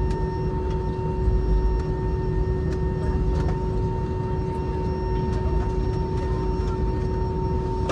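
Steady cabin noise of an Airbus A319 on the ground: a low rumble under a constant whine of two tones from the idling jet engines beside the wing.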